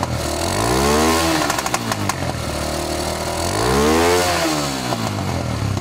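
Small air-cooled single-cylinder motorcycle engine revved up and back down twice, idling in between.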